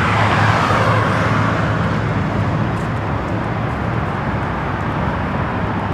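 Steady road traffic noise with a low rumble, a little louder for the first second or so.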